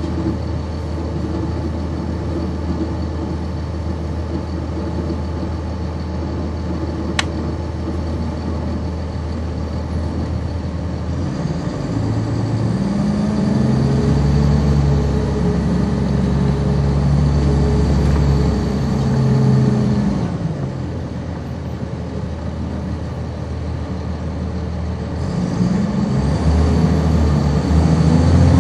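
Cummins ISC straight-six diesel of a 1999 NovaBus RTS transit bus, heard from on board: idling steadily, with a single click about seven seconds in. About eleven seconds in it pulls away, the engine note climbing in stages as the ZF automatic shifts up, with a high whine rising and falling over it. It eases off around twenty seconds and pulls away again near the end.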